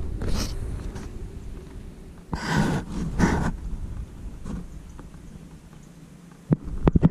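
A person breathes out hard twice, about a second apart, then a quick run of sharp clicks comes near the end.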